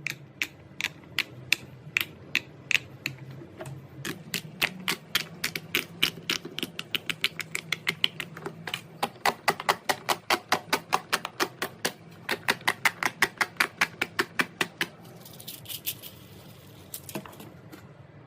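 Silicone pop it fidget toy bubbles being pressed one after another, each a short popping click. The pops start spaced out, then speed up to about four or five a second, and stop near the end after a brief rustle.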